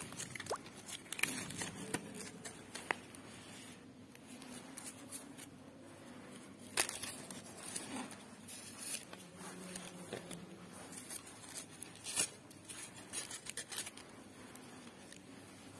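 Paper being handled: light rustling with scattered sharp clicks and crackles as a stiff green paper leaf is fitted around a paper tulip and bound to it.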